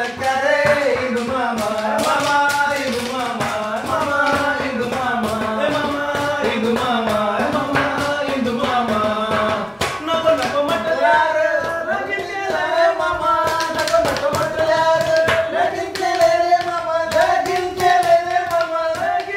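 Siddi folk song performed live: singing over steady, repeated percussion strikes.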